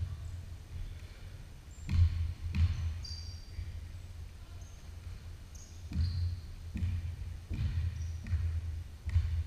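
Basketball bouncing on a hardwood gym floor during a pickup game: irregular thuds, the loudest two about two seconds in and a cluster more in the second half, mixed with short high sneaker squeaks, echoing in a large gym.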